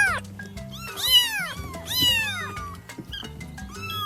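Domestic cat meowing repeatedly, about once a second, each meow rising and then falling in pitch, with a fainter meow near the end. Background music plays underneath.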